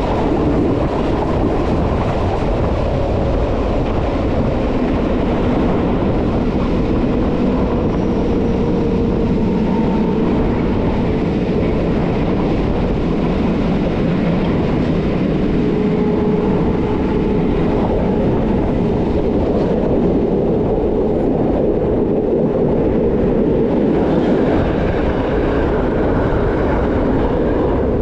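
Rhaetian Railway metre-gauge train running steadily along the track: a continuous rumble of wheels on rail, with faint shifting tones over it.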